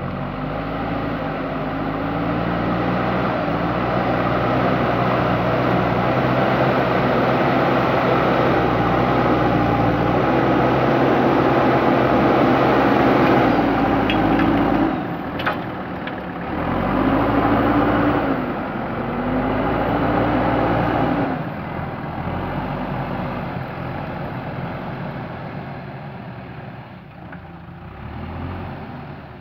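Diesel engine of a JCB backhoe loader revving up and down under load as it works, its pitch rising and falling in repeated swells. About two-thirds of the way through it drops back to a quieter, steadier run near idle.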